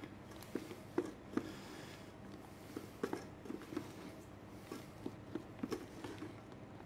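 Wooden spatula stirring sugar-coated nuts in a stainless steel saucepan: faint, irregular clicks and scrapes as the nuts knock against the pan while their sugar coating caramelizes.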